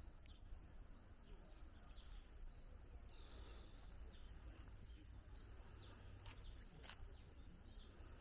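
Faint outdoor ambience: a low steady rumble with a few short, high bird chirps, one held a little longer about three seconds in.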